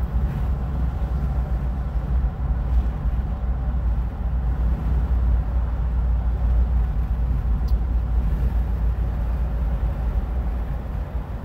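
Steady low rumble of engine and tyres on the road, heard inside a Jeep's cabin while it drives in traffic.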